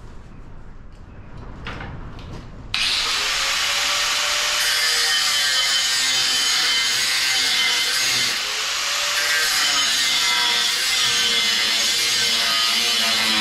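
Angle grinder cutting into steel plate, starting suddenly about three seconds in after a few light knocks and running steadily and loudly, with a brief dip about halfway through.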